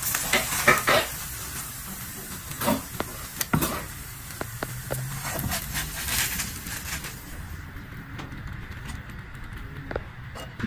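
Fried eggs sizzling in a non-stick frying pan, with scrapes and taps of a wooden spatula as the eggs are lifted out onto a plate. The sizzling thins out about seven seconds in.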